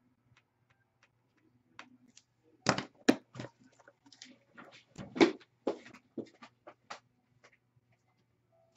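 A run of irregular clicks and knocks, like things being handled on a desk, with two louder knocks about three and five seconds in, over a faint steady hum.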